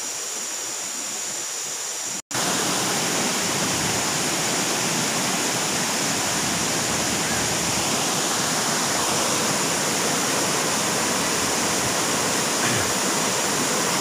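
Shallow rocky river rushing over stones: a steady, even rush of water. It starts abruptly after a brief dropout about two seconds in, before which there is only a quieter outdoor hiss.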